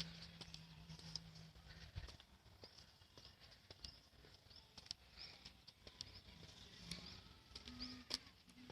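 Near silence: faint outdoor ambience with scattered soft clicks and faint, brief high chirps.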